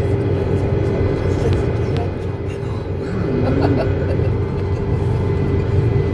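Cabin noise inside an Airbus A330-200 taxiing: a steady low rumble from the engines at taxi power, with a steady hum and a fainter high whine running through it.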